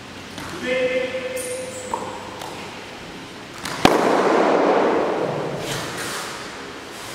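A short, high shout about a second in, then a sharp crack as a wooden fighting staff strikes the floor about four seconds in, followed by about two seconds of rushing, scuffing noise that fades.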